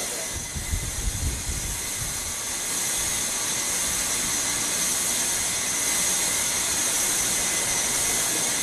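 Hair dryer blowing, a steady rushing hiss, with some low rumbling in the first couple of seconds. It is heating a temperature sensor toward an 85 °C overheat cut-off.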